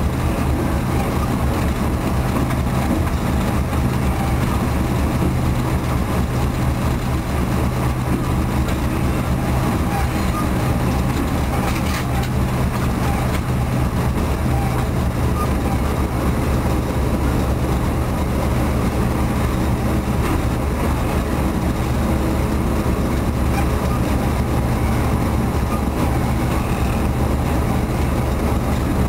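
D12E diesel-electric locomotive running, heard from inside its cab: a steady, loud engine drone with a deep, even hum and running noise.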